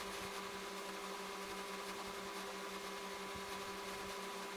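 Steady low hum over a faint even hiss: background room or electrical noise, with no other distinct sound.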